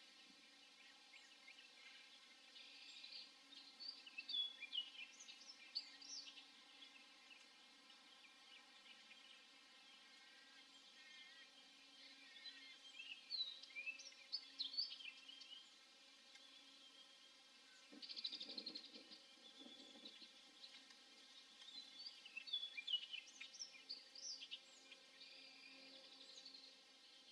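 Faint bird chirps and short twittering calls coming in three bursts over a low steady hiss, with a brief low rumbling noise about two-thirds of the way through.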